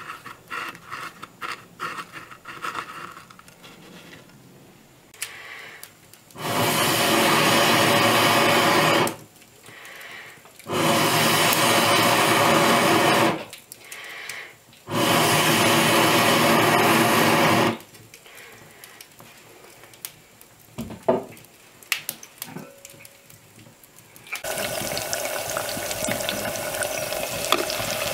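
Three long rushes of air, each about three seconds, from blowing through a fire-blowing tube onto the hearth coals to liven the fire. About 24 seconds in, breaded eggplant slices go into hot fat in an iron pot and set off a steady sizzle of frying.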